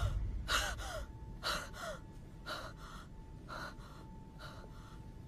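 A young boy panting in fear: quick paired gasping breaths about once a second, some with a short rising catch in the voice, growing fainter.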